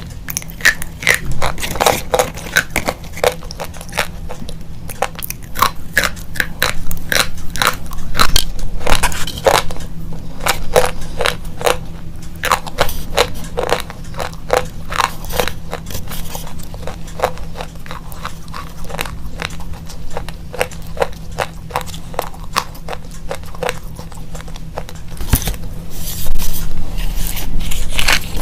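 Slate pencils being bitten and chewed: a dense run of crisp crunches and snaps that gets louder near the end, over a faint steady low hum.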